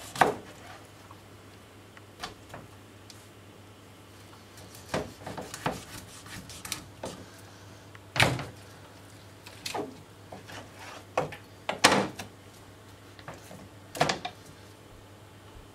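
Large kitchen knife chopping a whole hake through the backbone into steaks on a plastic cutting board: about eight sharp knocks, unevenly spaced, the loudest a little past the middle and near the end.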